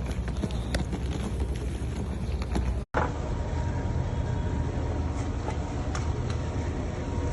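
A motorboat's engine running steadily, with the hiss of wind and water. The sound cuts out for an instant about three seconds in, then carries on much the same.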